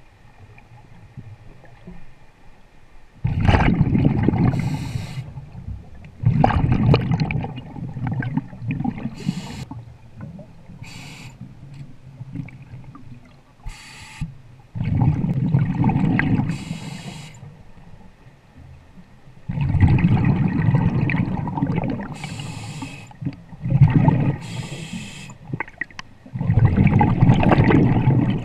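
A scuba diver breathing through a regulator underwater. Exhaled bubbles rush out in loud bursts a few seconds apart, each lasting a couple of seconds, with a fainter hiss of inhalation between them.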